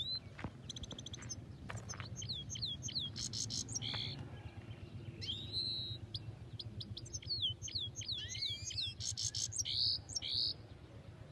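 Caged finches singing: a busy run of quick chirps, rising and falling whistled notes and buzzy trills that stops about ten and a half seconds in.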